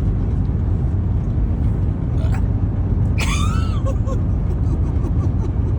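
Steady low rumble, with a short high-pitched squeal that rises and falls about three seconds in.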